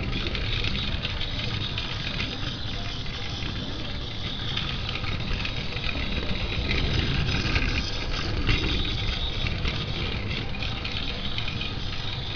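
Battery-powered Plarail C12 steam locomotive toy running around plastic track: a steady small-motor whir with its wheels rattling on the rails.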